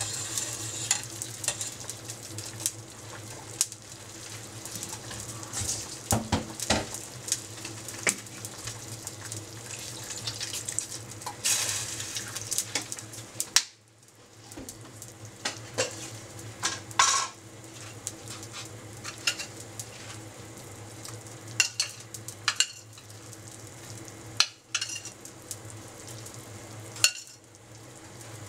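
Water bubbling at the boil in a stainless steel saucepan on a gas burner, with a metal ladle clinking and scraping against the pot now and then, over a steady low hum. The bubbling drops out briefly about halfway, then resumes as a simmer.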